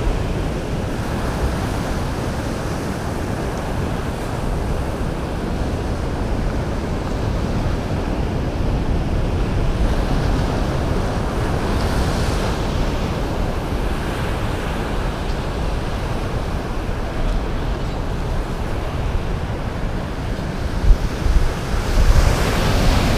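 Ocean surf washing onto a sandy beach, a steady rush, with wind rumbling on the microphone and a few sharper bumps near the end.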